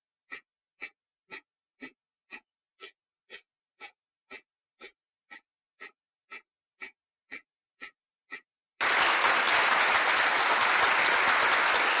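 Quiz countdown timer ticking evenly, about two ticks a second. About nine seconds in, the ticking gives way to a louder, steady burst of applause sound effect marking the correct answer.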